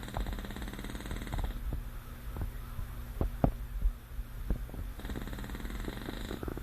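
English bulldog snoring in its sleep: two long, buzzing snores, one at the start and another about five seconds in.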